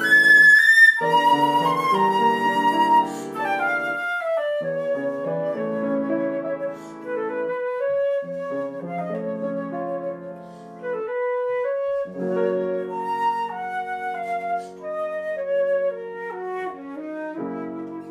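Concert flute playing a melody with grand piano accompaniment, the piano's chords pausing now and then under the flute line. The first few seconds are louder, then the music drops to a softer level.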